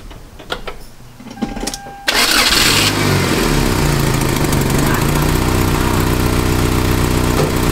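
A few light clicks, then about two seconds in the Toyota Tacoma's 2RZ 2.4-litre four-cylinder engine catches on a brief crank of well under a second and settles into a steady idle. It starts readily now that a new engine coolant temperature sensor is connected, where the broken sensor had left it struggling to start.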